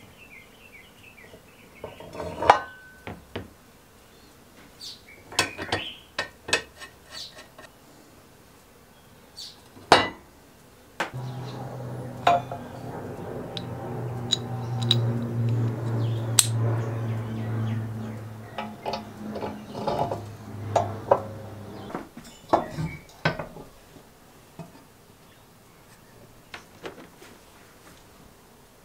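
Steel lawnmower parts clinking and knocking as a side frame and pins are fitted by hand onto the cutting cylinder, with two sharper knocks, about two and a half and ten seconds in. A steady low hum runs from about eleven seconds to twenty-two seconds in.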